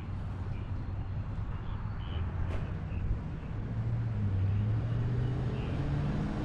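A heavy truck's engine running steadily, with a second hum rising in pitch over the second half as an engine speeds up.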